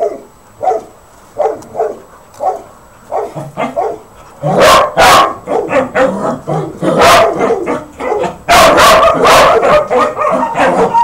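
Puppies barking and yipping: soft short yips for the first few seconds, then loud sharp barks in quick runs from about four and a half seconds in.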